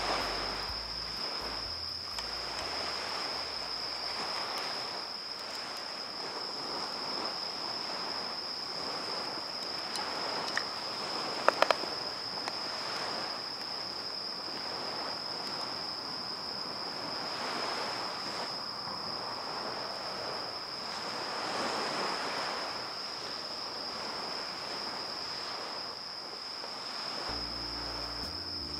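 Small waves washing onto a sandy beach, the wash swelling and fading every few seconds, under a steady high-pitched whine. A few sharp clicks come about eleven seconds in.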